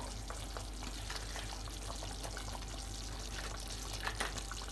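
Pot of kadhi simmering on the stove after its tadka: a steady low hiss with scattered small pops and ticks, a few louder ones about four seconds in.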